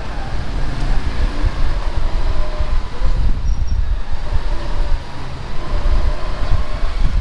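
A jeepney under way, heard from on board: loud, low engine and road rumble that rises and falls unevenly, with a faint wavering whine above it.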